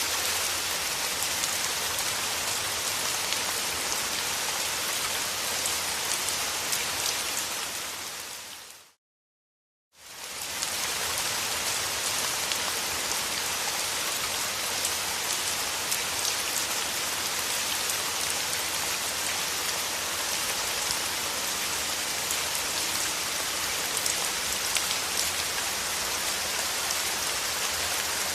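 Steady rain, a dense patter of drops. About eight seconds in it fades out to a second of silence, then fades back in.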